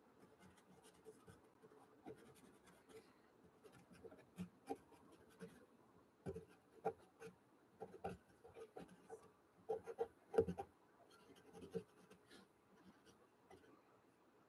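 Pastel pencil scratching over clear-gesso-coated watercolour paper in short, faint strokes and small taps. The strokes come in clusters and are loudest a little past the middle.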